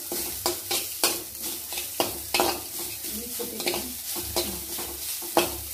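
Metal spatula scraping and tapping around a metal kadai about twice a second, over a steady sizzle of grated coconut, urad dal and curry leaves frying in coconut oil as the coconut is roasted.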